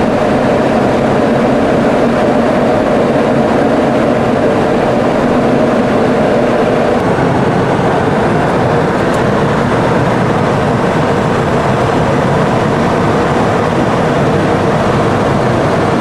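Steady, loud cockpit noise of a Boeing 707 in flight: a constant rush of engine and airflow noise, with a hum in it that fades about halfway through.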